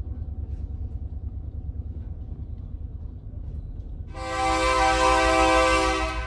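Diesel freight locomotive's air horn sounding one long blast, a chord of several steady tones, about four seconds in, over the low rumble of the passing freight train.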